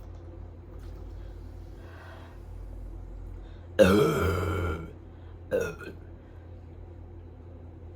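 A man burping from gulping down fizzy zero-sugar cola: one long belch of about a second near the middle, then a short second burp.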